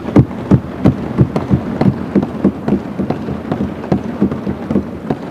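Assembly members thumping their desks in applause: a dense, irregular patter of heavy thuds that starts at once and thins out near the end.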